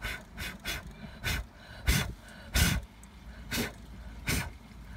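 A person blowing short, sharp puffs of air close to the microphone, about eight irregular puffs, the strongest about two and two and a half seconds in.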